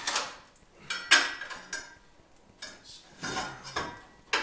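Metal tools and parts clanking and clinking: about six sharp knocks with short ringing, the loudest a little after a second in.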